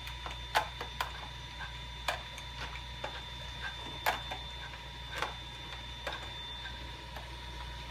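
Cube 3 cartridge's drive gears being turned by hand with a screwdriver, giving irregular sharp clicks about once a second as they push filament up the feed tube towards the printhead. A steady faint whine and hum sit underneath.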